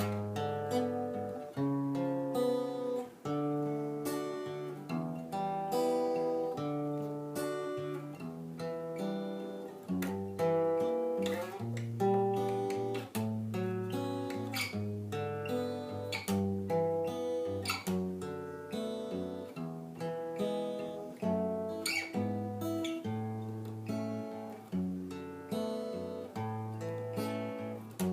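Acoustic guitar playing a chord progression in A minor, with notes picked and strummed at a steady pace and left to ring.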